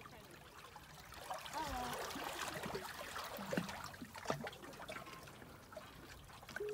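Seawater trickling and washing among shoreline rocks, with a few light knocks.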